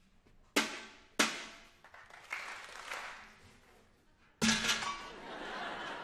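Galvanized metal bucket banged against a stage floor: two loud metallic clangs close together about half a second and a second in, then a heavier clang a little after four seconds, each ringing out.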